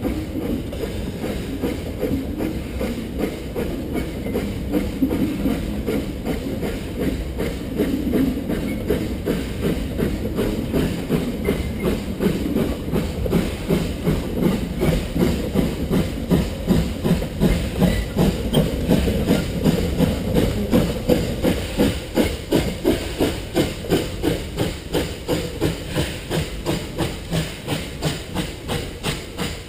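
Narrow-gauge 2-6-2T steam locomotive working a train across a timber trestle: rhythmic exhaust chuffs with steam hiss over the rumble and clatter of the wheels and wagons. The chuffing grows more distinct, at about three beats a second, as the engine passes close by.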